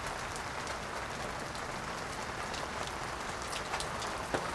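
Water pouring from a smoker's water pan through an open brass ball valve and splashing steadily onto wet ground, with rain falling around it. There is a single sharp tap near the end.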